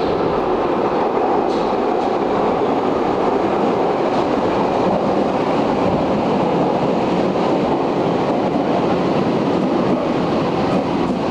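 Berlin U-Bahn U7 train pulling into an underground station, slowing as it comes in. Its wheels and motors make a loud, steady rumble that echoes off the station walls.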